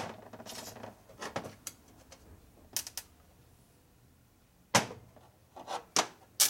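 Steel transmission gears and a shaft from a Harley 45 gearbox being handled and set down on a metal workbench: a handful of sharp metal clinks and knocks, spaced irregularly, the loudest about three-quarters of the way through.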